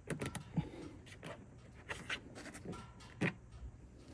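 Light irregular clicks and scrapes of a 10mm bolt being fitted and turned with a wrench to hold a plastic mudflap, with one louder knock about three seconds in.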